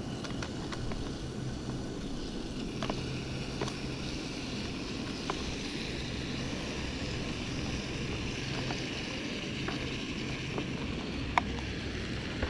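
Small gas camping stove burning with a steady low rush, and diced beef sizzling in a mini wok from about two seconds in as it is browned. A few light clicks of utensils.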